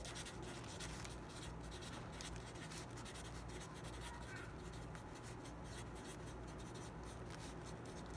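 Black felt-tip marker writing on a paper card: many short, faint scratchy strokes with brief pauses between words.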